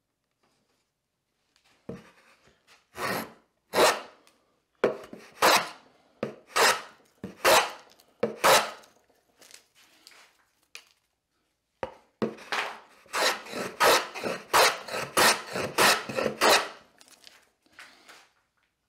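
A hand tool scraping across a wooden board in short, scratchy strokes. The first strokes come about a second apart; after a short pause, a quicker run of about a dozen follows.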